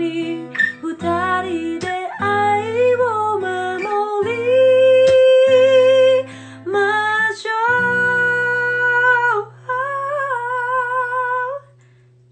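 A woman singing a slow song, with long held notes and vibrato, over a soft sustained accompaniment. Her last note breaks off near the end and a low accompaniment note fades out.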